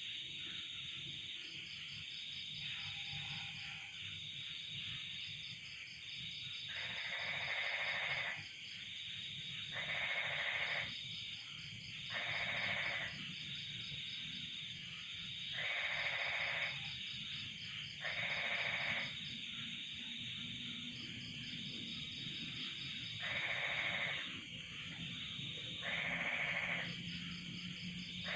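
Night chorus of crickets trilling steadily and high, with a frog giving loud calls about a second long, repeated every two to three seconds from about a quarter of the way in.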